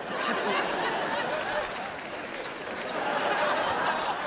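Large audience laughing together, a steady wave of many voices that eases slightly about halfway and swells again near the end.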